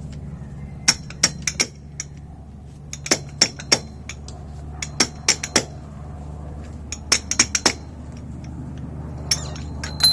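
Fork seal driver knocking a new oil seal down into a motorcycle fork leg: sharp metallic clinks in quick groups of two to five, a group every couple of seconds, over a steady low hum.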